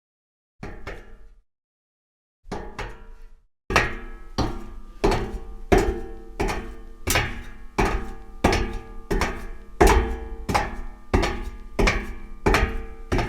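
Footsteps on a metal grate: two short bursts of a few steps with silent gaps, then from about four seconds in a steady walking rhythm of roughly one and a half steps a second. Each step clanks and leaves a brief metallic ring.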